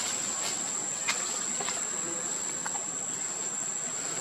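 Steady high-pitched drone of insects, with three faint clicks in the first three seconds.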